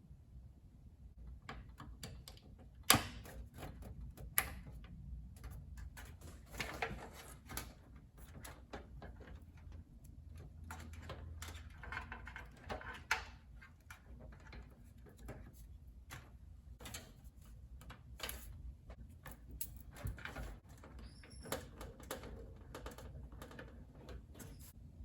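Scattered clicks, taps and knocks of PC parts and screws being handled and fitted into a computer case, with a sharper knock about three seconds in.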